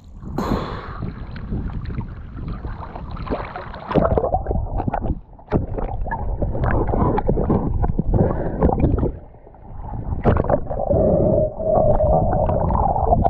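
Water rushing and splashing around a swimmer's action camera held at and just below the surface, heard muffled underwater, with short breaks where the noise drops about five and nine seconds in.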